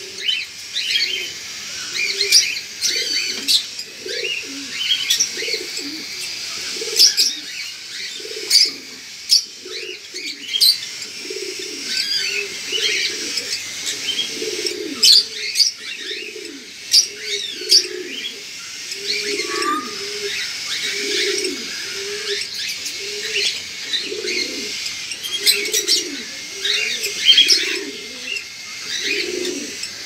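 Cage birds calling together: cockatiels chirping in short, high, scattered calls, over a low cooing that repeats about once a second throughout.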